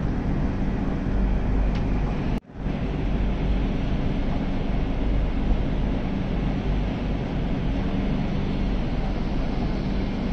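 Steady rushing noise with a low rumble underneath, heard beside a stationary passenger train while its coaches take on water. The sound cuts out for an instant about two and a half seconds in.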